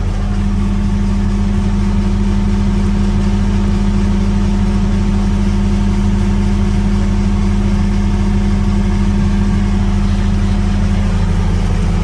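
John Deere 323E compact track loader's diesel engine idling steadily.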